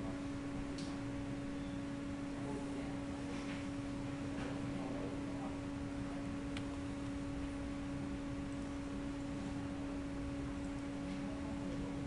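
Steady electrical hum in the recording, one constant low tone with fainter overtones, with a few faint clicks.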